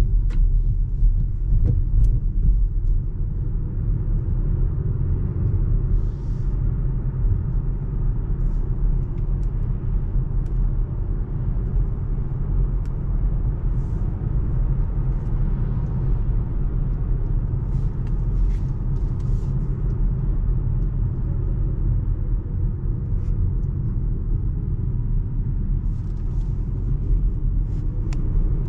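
Steady low road and tyre rumble heard inside the cabin of a Volvo C40 Recharge Twin electric car on the move. There is no combustion engine note, only the even rumble of the car rolling along.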